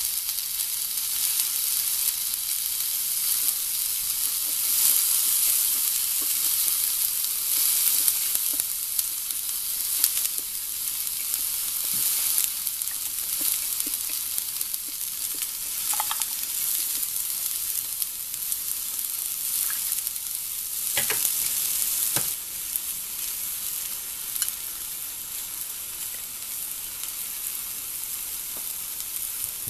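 Bean sprouts, cabbage and onion sizzling on a hot cast-iron pan over a tabletop gas burner: a steady high hiss with a few sharp clicks. The hiss eases slightly about three-quarters of the way through.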